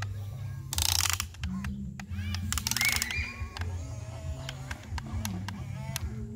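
Background music with a steady pulsing bass, over which a Huina remote-control excavator's electric gear motors whir in two short bursts, about a second in and again near three seconds, as the arm and bucket move.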